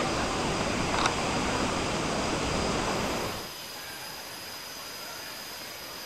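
Steady rushing of a waterfall, loud at first and then dropping to a quieter rush about three seconds in. A thin, steady high-pitched tone runs under it, and a single click comes about a second in.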